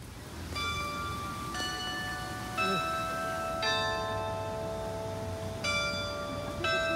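Bells ringing a slow tune, about one struck note a second with a short pause near the middle, each note ringing on under the next.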